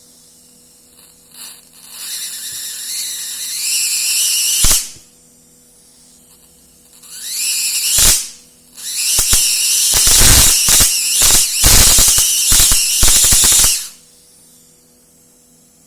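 High-voltage arc from a CRT monitor's flyback transformer, about 27 kV. It hisses and buzzes from about two seconds in and ends in a sharp snap near five seconds. A rising whine follows and ends in another snap around eight seconds, then the arc sizzles loudly for about four and a half seconds with rapid cracks before cutting off.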